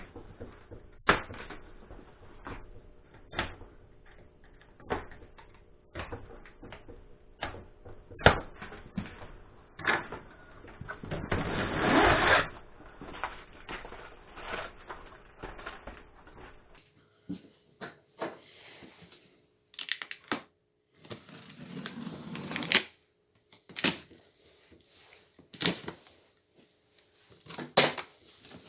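A cardboard shipping box being pulled open by hand: scattered clicks, knocks and scrapes of cardboard and packing, with a longer rasping stretch about twelve seconds in.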